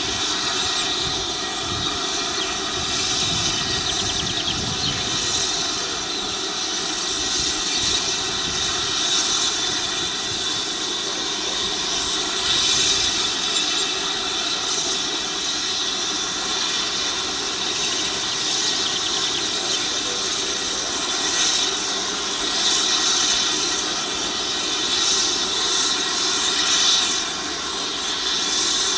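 Multirotor drone's motors and propellers whining steadily in a layered buzz, with a low rumble of wind in the first few seconds.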